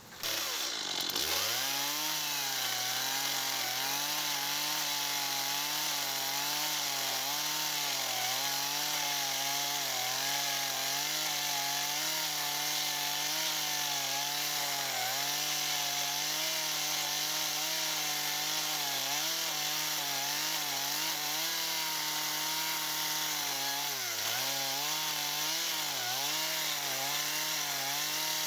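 Chainsaw cutting wood, running near full throttle, its pitch dipping briefly now and then, most deeply about 24 seconds in. It comes in suddenly at the start.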